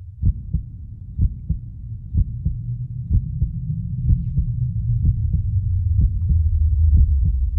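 Heartbeat sound: paired lub-dub thumps about once a second over a low rumble, growing steadily louder.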